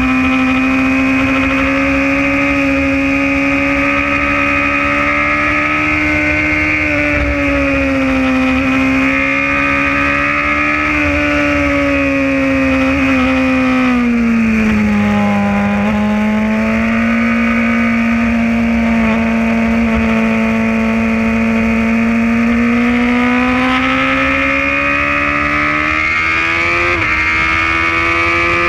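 Sport motorcycle engine running hard at high revs, heard from the bike's onboard camera. The pitch holds high, sags and drops about halfway through as the bike slows for a turn, then climbs steadily again, with a quick jump in pitch near the end.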